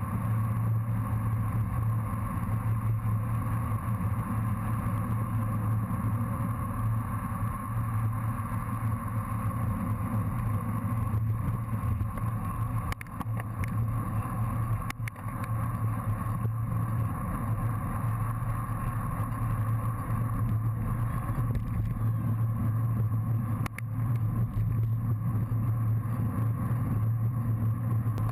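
Steady wind rumble and road noise on a bicycle-mounted action camera moving at racing speed, with a few brief clicks scattered through.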